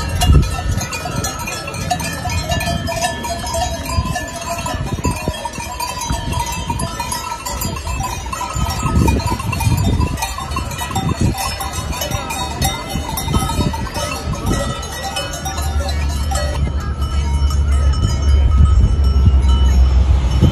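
Many cowbells on walking cattle clanking and ringing irregularly, several bell tones overlapping. A steady low rumble comes in near the end.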